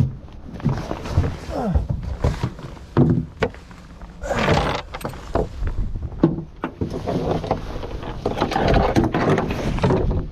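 A series of knocks and thumps mixed with scraping and rustling. A rushing noise comes in about four seconds in and again near the end.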